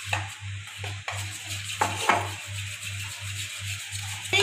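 A spoon stirring thick batter in a steel bowl, with a few sharper scrapes and clinks of the spoon against the bowl, over a low, evenly pulsing hum.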